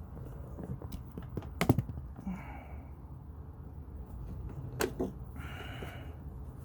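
Hands and tools working a tight power steering hose loose on a car: a few sharp clicks and knocks, the loudest about two seconds in, and two brief scraping, rubbing sounds.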